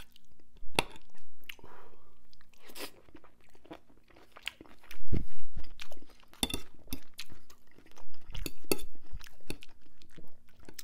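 A man chewing a mouthful of rotisserie chicken and cheesy broccoli, with irregular sharp wet smacks and clicks, a few of them louder about halfway through and again near the end.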